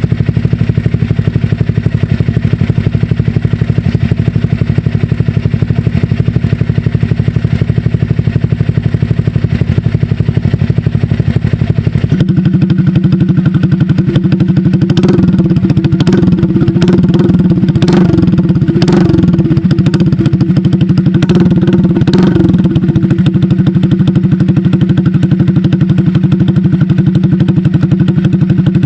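Honda Click scooter's single-cylinder engine running through an SC Project aftermarket exhaust fitted with a silencer insert. It idles steadily, then about twelve seconds in it settles at a higher, steady speed, with a string of sharp cracks in the middle stretch.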